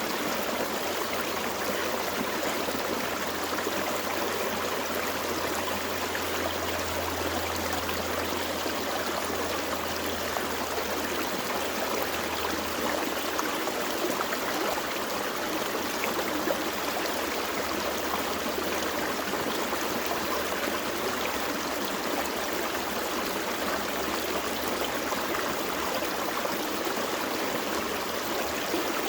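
Small forest creek flowing steadily over rocks, a constant rushing and babbling of water.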